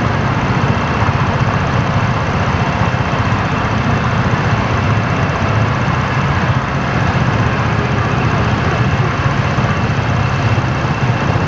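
Kymco Jet SR scooter's single-cylinder engine idling steadily while stopped, picked up close to the exhaust by a dashcam fixed above the licence plate.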